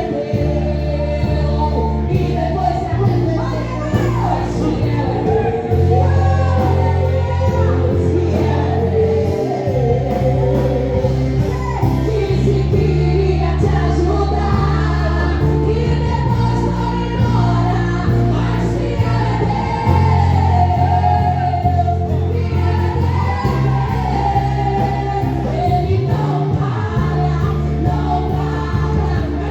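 Gospel praise song: voices singing over a band, with a heavy bass line that moves to a new note every few seconds.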